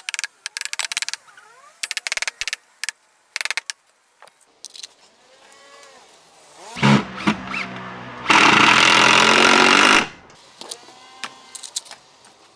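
Claw hammer knocking a 2x4 timber brace into place with a few short sets of blows, then a cordless drill-driver spinning up about seven seconds in and running hard for about two seconds as it drives a screw into the timber.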